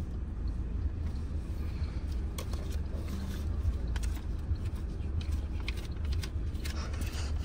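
Steady low rumble of a moving vehicle, with a few faint clicks over it.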